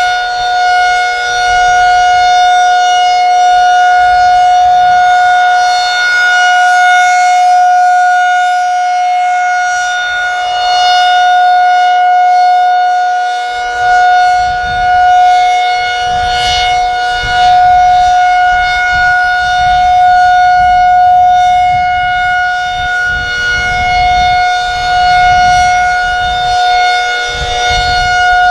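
Federal Signal 2001SRN rotating electromechanical warning siren sounding a steady, unchanging tone at full speed. Its loudness swells and fades every several seconds as the rotating head sweeps past.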